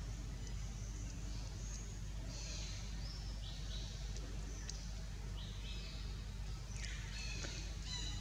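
Several short, high-pitched chirping calls, some falling in pitch, with the longest falling call about seven seconds in, over a steady low background hum.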